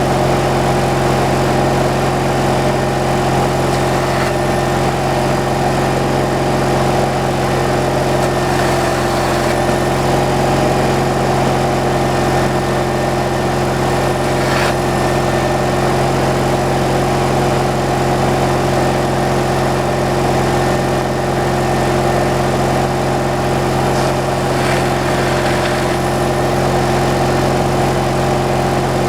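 Engine running steadily at one constant speed, with a few faint knocks spread through it.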